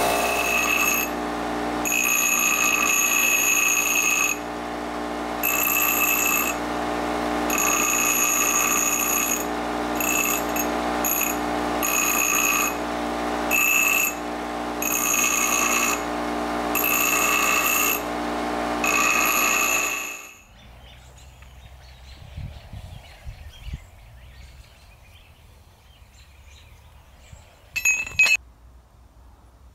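Bench grinder running with a steady hum as a forged steel railroad spike is pressed against the wheel in repeated passes, each contact giving a high-pitched ringing grind. The grinding stops abruptly about twenty seconds in, leaving faint low knocks and one brief sharp clink near the end.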